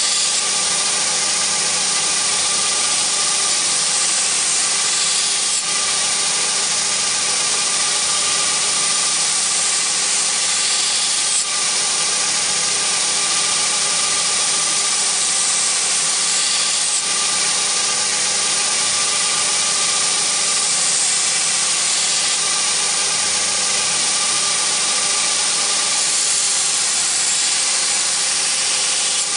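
Belt grinder running with a steel knife blade pressed against the abrasive belt: a steady hissing grind over the motor's hum, dipping slightly a few times.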